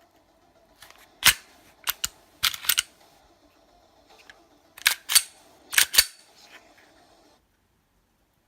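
Sharp clicks and clacks of a Glock 43 pistol being reassembled by hand with a new stainless steel guide rod and recoil spring, the slide being fitted and worked on the frame. About nine clicks come mostly in quick pairs, then the sound cuts out near the end.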